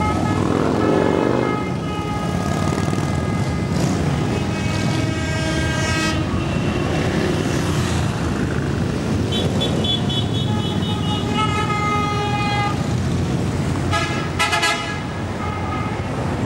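A column of big cruiser and touring motorcycles rumbles past in street traffic, with one engine revving up near the start. Horns sound in long held blasts twice, then a quick run of short beeps near the end.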